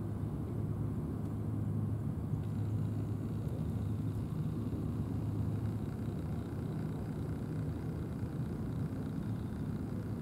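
Steady low outdoor rumble of background noise, with no distinct events.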